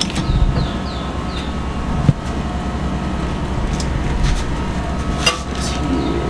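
A steady low mechanical hum and rumble, with a couple of sharp metal clicks as the stainless brew kettle's valve and lid are handled.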